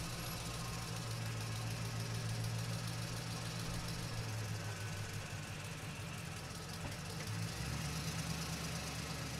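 Axial SCX10 RC crawler's electric motor and gearbox running with a steady low hum, heard through its onboard camera. The hum changes about three-quarters of the way through as the truck speeds up.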